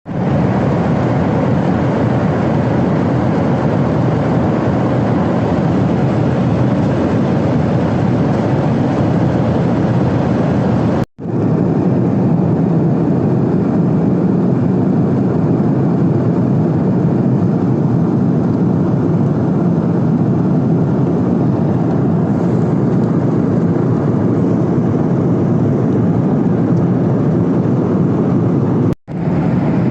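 Steady cabin noise of an airliner in flight: the even rush of engines and airflow heard inside the passenger cabin. It breaks off briefly twice, about 11 seconds in and near the end.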